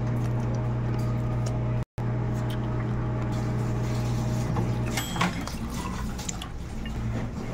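Clear liquor poured from a glass bottle into a drinking glass, a short trickle of filling in the second half, with a sharp glassy clink about five seconds in. A steady low hum runs underneath until the pour begins.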